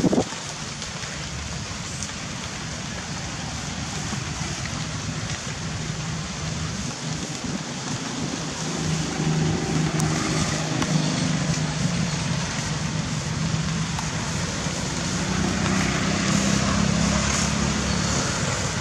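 Steady outdoor road-traffic noise, with a vehicle engine's low hum rising about halfway through and lasting to near the end.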